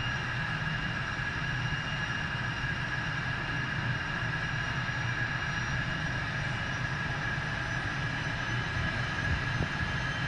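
Aircraft turbine engines running steadily: an even whine over a low rumble, with no change in pitch or level.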